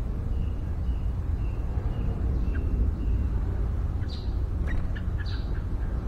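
Yellow-vented bulbul calls over a steady low rumble: a run of about six short, even notes, roughly two a second, then sharper, higher chirps in the last two seconds.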